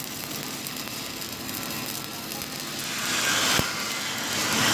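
Stick-welding arc crackling and hissing as a horizontal bead is run along a steel tank seam, growing louder about three seconds in, with one sharp pop shortly after.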